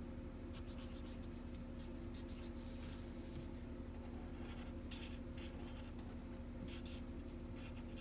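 Felt-tip marker scratching across paper in several quick runs of short strokes with pauses between, colouring in a drawing, over a steady low hum.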